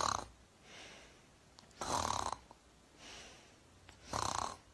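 A woman imitating snoring: three loud snores about two seconds apart, with softer breaths between them.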